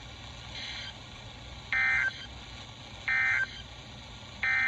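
NOAA Weather Radio SAME end-of-message data bursts: three short, identical buzzy digital tone bursts about a second and a half apart. They mark the end of the weather radio alarm test.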